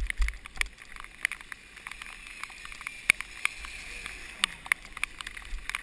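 Wind buffeting the microphone in a storm, with a low rumble that eases in the middle and picks up again near the end, over a steady hiss with many scattered sharp ticks, typical of rain on the camera or longboard wheels rolling over wet pavement.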